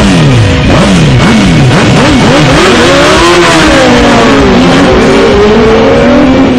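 Several 1000 cc superbike engines revving hard as the bikes launch together and accelerate away, the engine note starting suddenly, then climbing and dropping repeatedly through the gears, over rock music.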